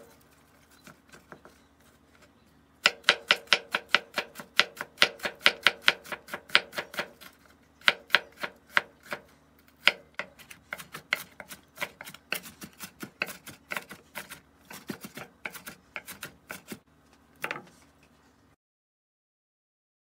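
Kitchen knife dicing an onion on a wooden cutting board: a quick, even run of knocks, about four a second, faint at first and much louder from about three seconds in. The strokes thin out later, a last sharper knock comes, and the sound cuts off suddenly near the end.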